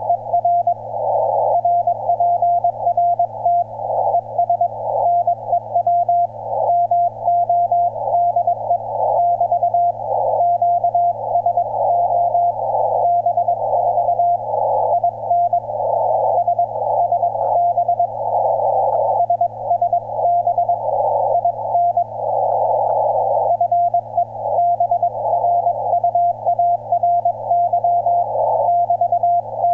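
Morse code (CW) on an HF amateur radio transceiver: a single tone of about 700 Hz keyed on and off in dots and dashes, with hiss from the narrow receiver passband filling the gaps between elements. A steady low hum runs underneath.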